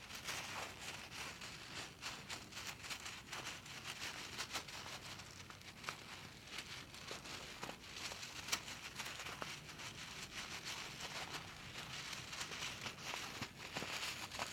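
Close-up ASMR handling sounds on a mini microphone: continuous crinkling and rustling with many small crackling clicks and a sharper click about halfway through.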